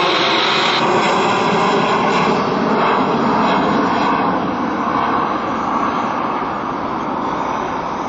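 Frontier Airlines Airbus A320's jet engines at climb power after takeoff, a steady rushing roar that slowly fades as the airliner climbs away.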